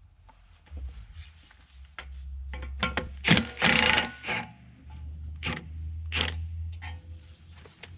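Metal hand tools clicking, knocking and scraping on the bevel gearbox and flywheel ring gear, with a louder rasping scrape about three and a half seconds in, over a steady low hum.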